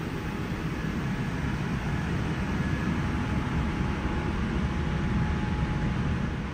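Steady low rumble and hiss of the cabin air system in a parked Boeing 787-9's empty cabin, with a faint steady tone in the middle.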